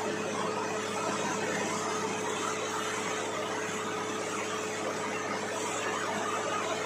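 Borewell drilling rig running steadily: an even mechanical noise with a constant hum and one steady tone held throughout.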